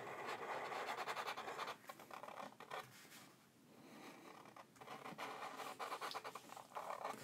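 Sharpie markers drawing on paper: faint, scratchy strokes of the felt tips. There is a pause of about a second and a half in the middle.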